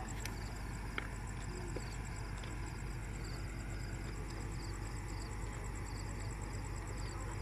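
Insects chirping in a fast, even pulse with groups of lower chirps, over the steady low rumble of an engine running.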